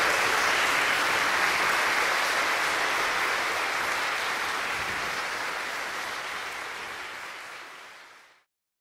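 Audience applauding steadily, fading out over the last few seconds and then stopping.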